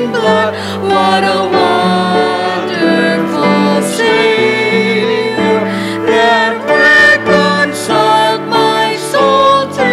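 Hymn singing led by a woman's voice at the microphone, with instrumental accompaniment.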